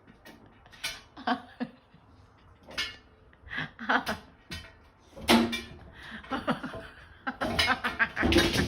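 People laughing in short, irregular bursts.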